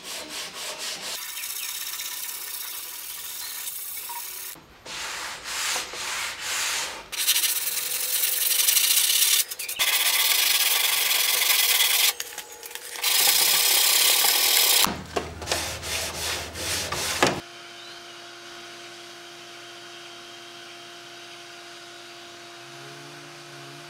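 Sandpaper on hand sanding blocks rubbed back and forth over stripped wood, a gritty hiss in runs of a few seconds with short breaks. About 17 seconds in the sanding stops and only a quieter steady hum with a few steady tones remains.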